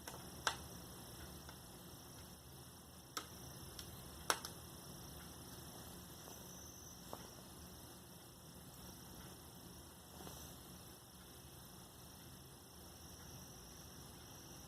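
A few short, faint clicks and ticks of a small screwdriver working the screws back into a laptop's screen assembly, over a steady low hum.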